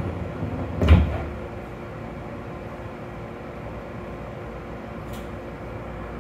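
Train passenger doors sliding shut and closing with one heavy thud about a second in. After it comes the steady hum of the electric train standing still.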